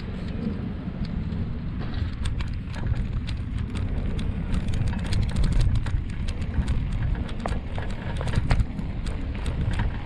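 Bicycle riding with wind buffeting the camera microphone as a steady low rumble, and many sharp rattling clicks as the wheels and frame jolt over cobblestones.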